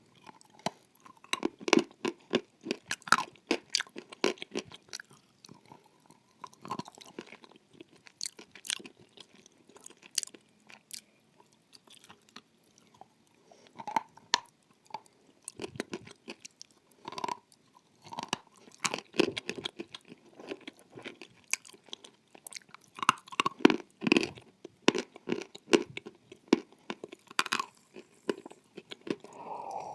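A person biting and chewing dry edible clay, the kind called blue Uzbek clay, close to the microphone: irregular sharp, crisp crunches and crackles. They come thickest in the first few seconds and again in a run a little past two-thirds through.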